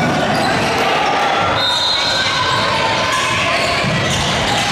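Basketball bouncing on a hardwood gym floor amid the steady echoing din of a large gym during a game, with a brief high squeak about two seconds in.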